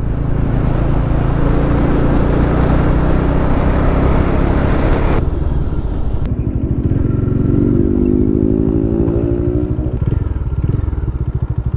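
Bajaj Dominar 400's single-cylinder engine under way, under heavy wind rush. About five seconds in the rush cuts off abruptly. The engine's note then rises steadily as the bike accelerates, and drops to a low, uneven chug near the end.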